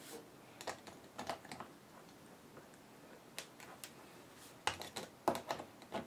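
Faint, irregular light clicks and taps of pliers on the small metal and plastic parts of an e-bike freewheel as its lock nut is turned and tightened by hand, with small clusters of clicks near the middle and about five seconds in.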